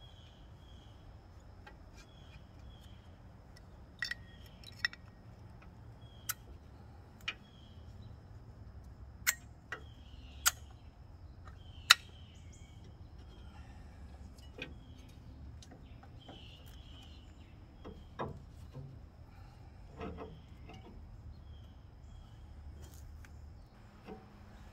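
Sharp metallic clicks and clinks of a brake caliper and its hardware being handled and fitted over a new drilled and slotted brake rotor. There are about eight in the first twelve seconds, the loudest near twelve seconds, then two duller knocks a little later. Faint bird chirps sound in the background.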